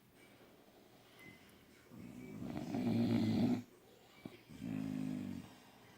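A sleeping bully-breed dog snoring: two long snores, the first about two seconds in and louder, the second near the end.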